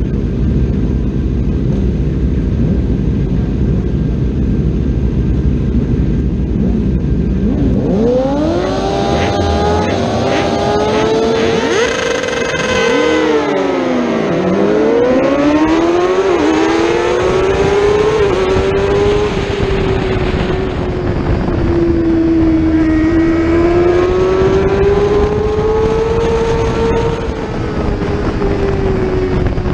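600cc racing motorcycle engine heard onboard: a dense low rumble at first, then from about eight seconds in the revs climb hard as it accelerates. Around the middle the pitch drops sharply while other race bikes' engines sweep past, then it runs on at high revs with slow rises and falls.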